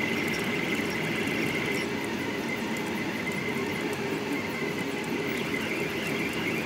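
Delta Rostock 3D printer printing at high speed: its stepper motors run with a steady high-pitched whine over a busy mechanical hum.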